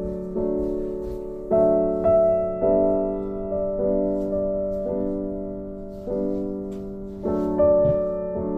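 Background music: slow, soft piano chords, each struck and left to ring and fade before the next.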